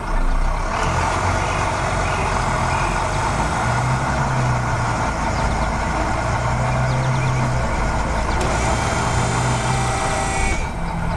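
Heavy truck engine running steadily, with a deep hum that swells and fades a few times; it stops shortly before the end.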